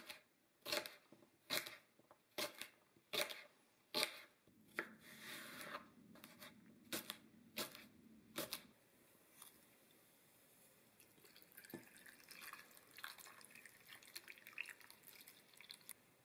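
A chef's knife cutting through rhubarb stalks on a plastic cutting board: about ten crisp chops, each ending in a sharp knock on the board, roughly one a second. Later, softer scattered clicking and rustling.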